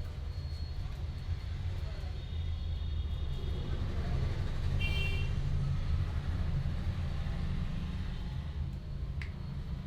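Steady low rumble of background noise, with a short high-pitched tone about five seconds in and a single sharp click near the end.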